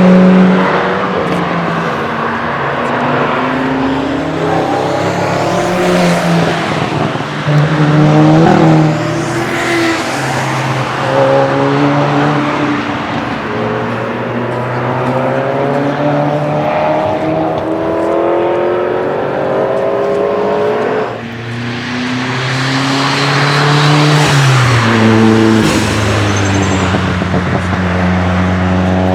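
Several cars driving past one after another on the Nordschleife, their engines revving up and dropping back through gear changes. The level dips briefly about two-thirds of the way through as one car goes and the next comes in.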